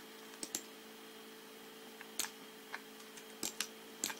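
Scattered sharp clicks of a computer mouse, about seven in all at irregular intervals, over a faint steady hum.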